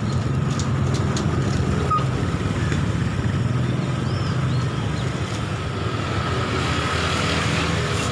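A steady low engine hum, like a motor vehicle running at idle close by.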